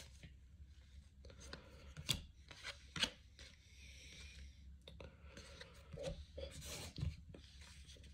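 Baseball trading cards being handled and slid over one another: soft rubbing of cardstock, with a few light taps, the sharpest about two and three seconds in and another near seven seconds.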